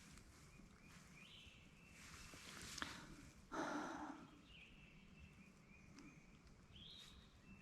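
Near silence in woodland: faint songbirds chirping in thin, high notes off and on, with a short breathy rustle about three and a half seconds in and a faint click just before it.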